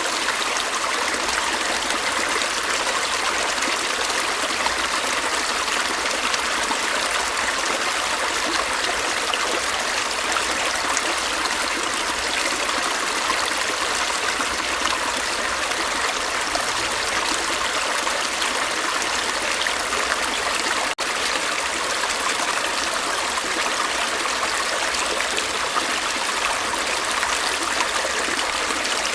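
Stream water flowing steadily, a continuous rushing and trickling. It cuts out for an instant about two-thirds of the way through.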